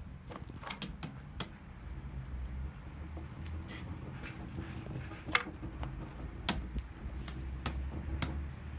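Wood campfire crackling, with sharp, irregular snaps and pops over a steady low rumble.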